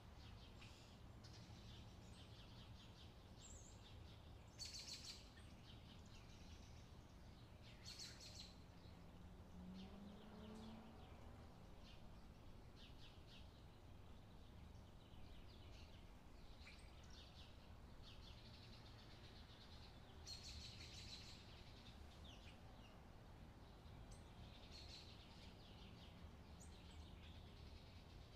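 Near silence: a low steady hum, with faint high bird chirps every few seconds.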